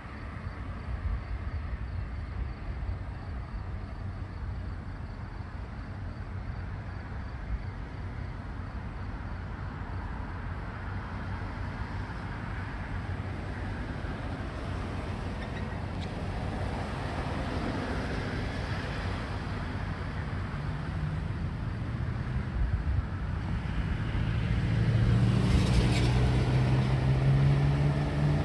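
Street traffic noise, with the diesel engines of two EMD GP38-2 locomotives drawing closer and growing louder over the last few seconds.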